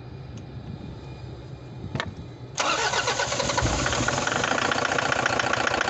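Toyota Hiace D-4D common-rail diesel engine running, an engine with a knock. Quiet and steady at first, with one click about two seconds in. About two and a half seconds in, a much louder, fast clatter suddenly takes over.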